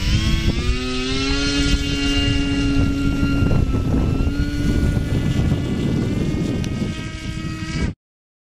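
RC model plane's motor and propeller spinning up for a takeoff run on its landing gear from grass: a steady high whine with a low rumble underneath. The pitch sags a little partway through, and the sound cuts off suddenly near the end.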